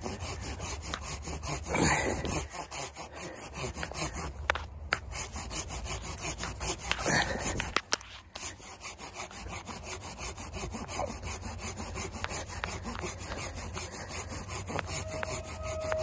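Folding hand saw cutting back and forth through a dead tree branch, a steady run of rasping strokes, with a brief pause about eight seconds in.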